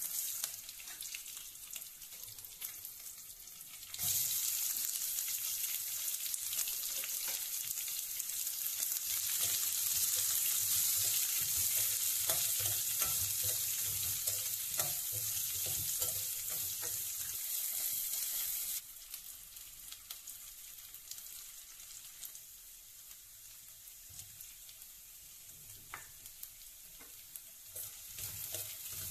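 Sliced onions and green chillies frying in hot oil in a stainless steel kadai. A loud sizzle starts suddenly about four seconds in and drops abruptly to a quieter sizzle a little past the middle. A metal spoon stirs the onions, with scattered clinks and scrapes against the steel pan.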